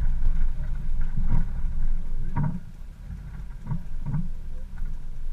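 Off-road vehicle driving slowly along a muddy, rutted track: a low engine rumble, broken by several short knocks and jolts as the wheels drop through the ruts.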